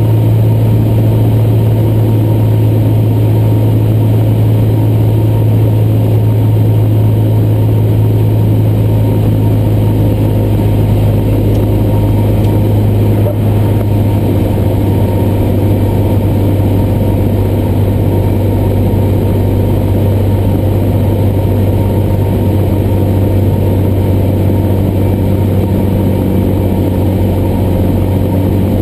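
Cessna 175's piston engine and propeller droning steadily in flight, heard from inside the cockpit as a strong low hum.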